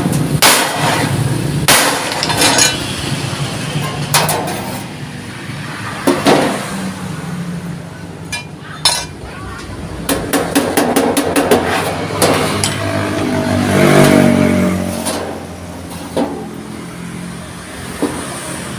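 Irregular metallic knocks and clanks from thick steel sheet being worked, struck a dozen or so times at uneven intervals, with a close cluster about two-thirds of the way through. A steady low hum runs underneath.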